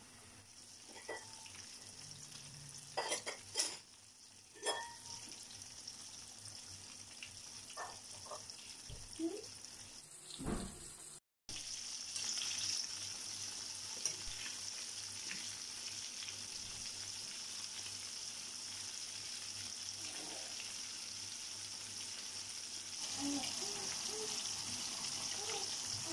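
Breaded chicken pieces frying in hot oil, a steady sizzle. There are a few clicks and knocks in the first few seconds. After a brief break about 11 s in, the sizzle comes back louder and steady.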